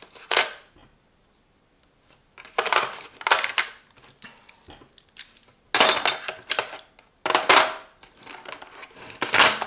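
Steel sockets, extension bars and a ratchet clinking and clattering against each other and the plastic case as they are lifted and set back in. The clatters come in several separate bursts, with a short quiet pause after the first.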